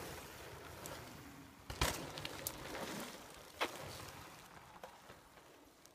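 Mountain bikes rolling over a dirt trail: tyre noise with a few sharp knocks and rattles from the bikes over bumps, fading away near the end.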